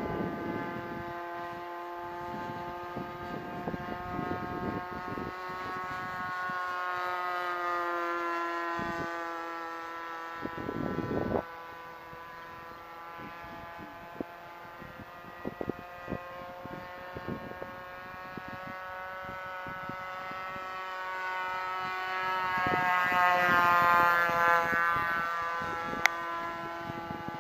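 Super Tigre .51 two-stroke glow engine with a Slimline Pitts muffler, pulling an RC model plane in flight: a steady buzzing whine whose pitch slides up and down. It grows louder to a close pass about 24 seconds in, the pitch dropping as the plane goes by. Wind buffets the microphone now and then.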